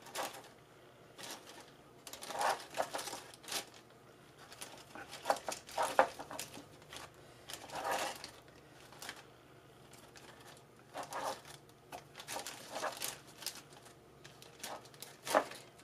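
Thin plastic bag crinkling and rustling in short, uneven bursts as it is handled.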